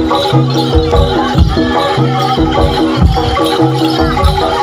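Javanese jaranan music: gamelan-style metallophones play a fast repeating figure over steady drum beats, with a low held note coming back about every one and a half seconds.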